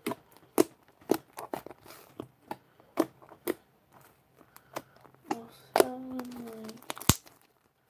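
Slime being squished, stretched and poked by hand, making irregular wet clicks and pops, with one sharp pop near the end. A brief vocal sound from the player partway through.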